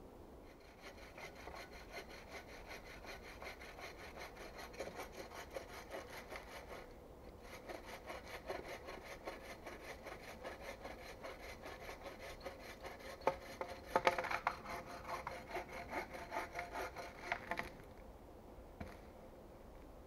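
Bow saw cutting through a fallen birch log in quick, even strokes. There is a short pause about seven seconds in and a few louder knocks partway through, and the sawing stops a couple of seconds before the end.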